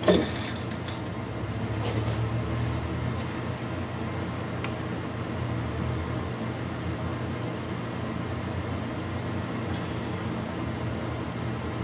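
Steady low mechanical hum, like a motor or fan running, with a short sharp metallic clank at the start and a couple of faint clicks as the piston and lathe chuck are handled.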